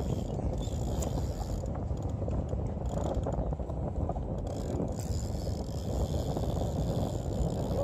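Conventional fishing reel giving a fast, steady ratcheting click, with wind rumbling on the microphone.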